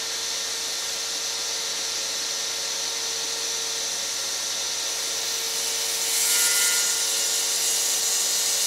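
Cordless circular saw running at a steady speed and cutting through plywood, a little louder for about a second partway through.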